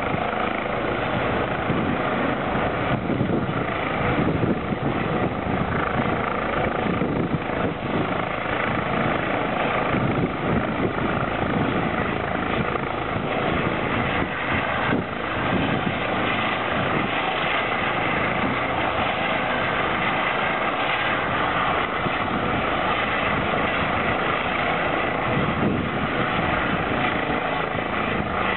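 Eurocopter EC135 helicopter running close by with its rotor turning: a steady rotor and engine noise with a high turbine whine, unchanging throughout.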